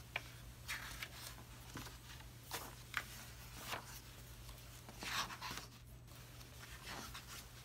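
Glossy pages of a hardback book being turned by hand: a series of papery swishes and light flicks, the loudest about five seconds in.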